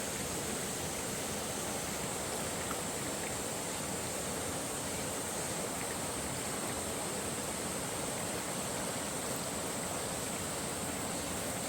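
River water flowing steadily, an even rushing hiss with no breaks. A steady high-pitched hiss runs along with it.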